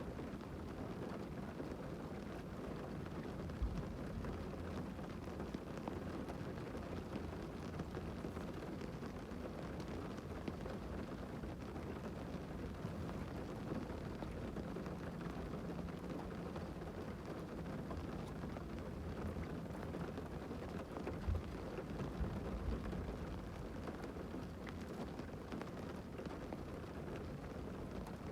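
Rain falling on a parked car, heard from inside the cabin as a steady, even noise, with a few brief low thumps.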